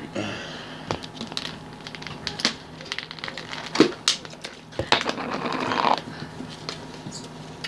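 Plastic slushie cup being handled as its straw and lid are pulled off: scattered sharp clicks and crinkling, with a longer scratchy rustle about five seconds in.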